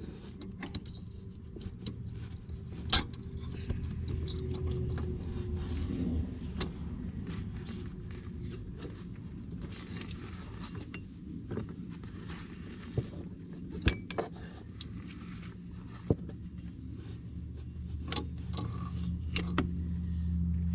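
Scattered metallic clinks and taps of hand tools against engine parts while a belt is worked back onto the pulleys, over a steady low hum that grows louder near the end.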